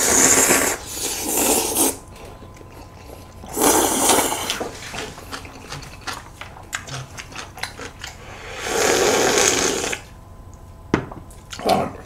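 Noodles slurped loudly in three long pulls, near the start, about four seconds in and about nine seconds in, with wet chewing and mouth clicks between them.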